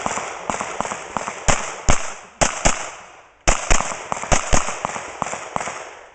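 Pistol shots fired in rapid strings, often in quick pairs, each sharp crack trailing off in echo, with a short pause about three seconds in before the shooting resumes.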